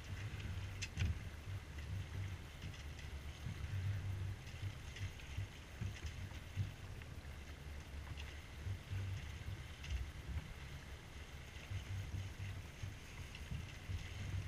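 C&C Mirage 24 sailboat moving under sail: wind buffets the camera microphone in an uneven low rumble, and water swishes along the hull with scattered small splashes and clicks.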